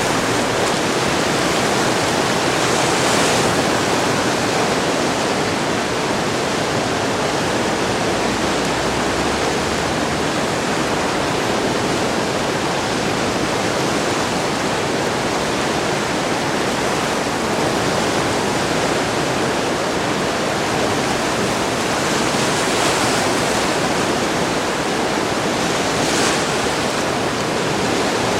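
The Driva river in major flood, carrying about 1000 cubic metres a second, rushing past as a loud, steady roar of water.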